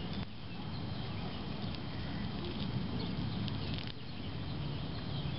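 Fingers scratching and rummaging through damp soil and grass in a shallow hole, with a few faint small ticks, over a steady outdoor hiss.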